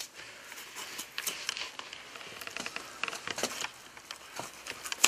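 Knife and hands working through the tissue along a deer carcass's rib cage: an irregular scatter of small clicks, crackles and scrapes.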